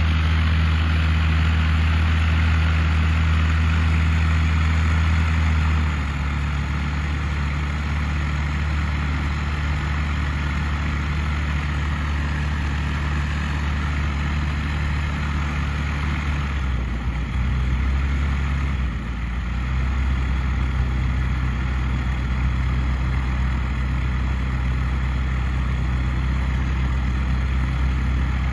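Steady engine drone made of low, even tones that steps down in pitch and loudness about six seconds in, then shifts again a little past the middle.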